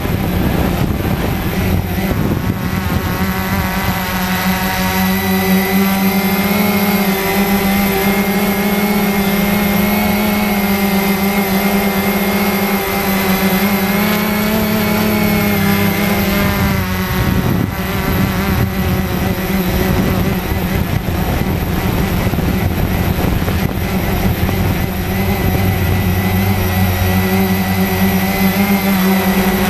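Cheerson CX-20 quadcopter's four brushless motors and propellers whining steadily, heard from the camera mounted on the drone itself. The pitch wavers as the drone manoeuvres and dips briefly about halfway through before settling again.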